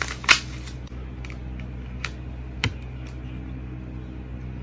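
Plastic wrapping handled and pulled off a body-lotion pump bottle, with a sharp click near the start and two more clicks around the middle as the bottle and its pump top are handled. A steady low hum runs underneath.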